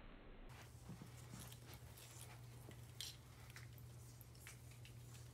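Near silence: room tone with a steady low hum, from about half a second in, and a few faint scattered clicks.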